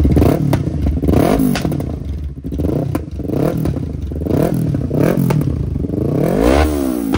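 Yamaha R3's parallel-twin engine revved in a series of quick throttle blips, about six, the highest near the end, through a replica slip-on muffler held by hand on the header. Crackling backfire pops come from the open exhaust between blips.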